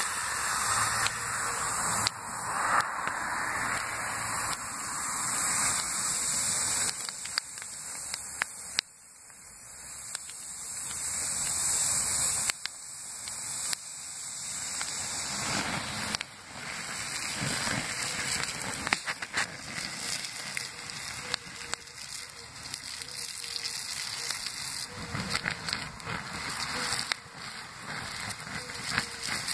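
Garden hose spraying water onto the glowing embers of a burnt-out stump, the hot coals hissing and crackling as they give off steam. The hiss swells and falls away several times, and scattered pops and crackles come through, mostly in the second half.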